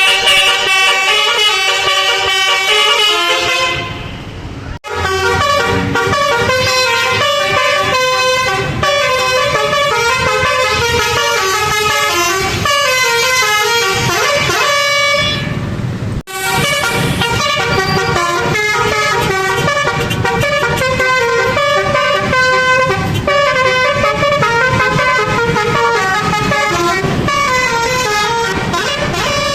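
Telolet basuri multi-tone musical air horn on an Indonesian truck or bus, playing fast runs of stepping notes like a tune. The horn stops briefly twice, about five seconds in and again about halfway through, then starts up again.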